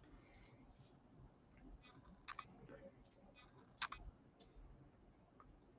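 Near silence broken by a few short, faint clicks; the two clearest come about two and four seconds in.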